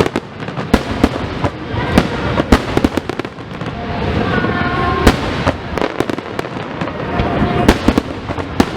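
Aerial fireworks display: a rapid, irregular string of sharp bangs and pops, many overlapping one another.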